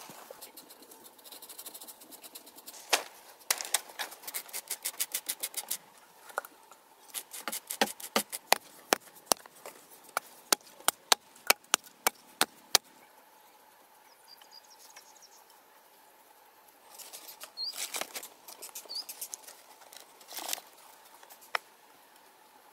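Hand-tool work on dry earth: runs of sharp clicks and knocks, at one point fast and even at about seven a second, then rougher scraping in the second half.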